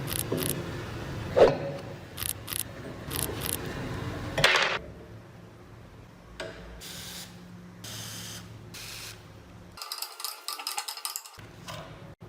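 Scattered knocks, clicks and scraping from hand work on the old vegetable grater. The sharpest knock comes about a second and a half in, and a quick rattling run of small clicks comes near the end.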